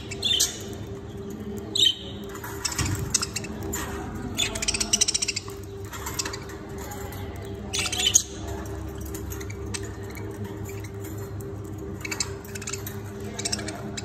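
Budgerigars chirping and chattering in short bursts, with a fast rattling trill about five seconds in. The calls thin out after about eight seconds. A steady low hum runs underneath.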